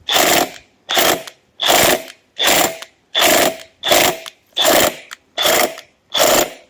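Impact wrench on a 19 mm socket hammering in nine short bursts, one a little under every second, trying to turn over the seized engine of a Tohatsu 4hp outboard.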